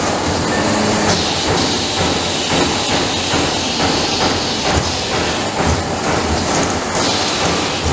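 Trumpf Trumatic 200 Rotation CNC turret punch press punching sheet metal: a rapid, even run of punch strokes, about two to three a second, over a steady hiss and the clatter of the sheet being moved between hits.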